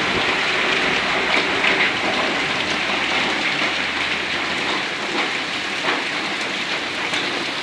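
Heavy downpour: a dense, steady hiss of rain with scattered drops ticking on surfaces.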